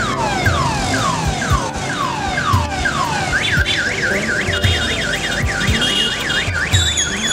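Electronic alarm siren cycling through its tones: falling whoops about twice a second, then about three seconds in a fast rising-and-falling warble, and near the end steady high beeps. Low thumps sound underneath.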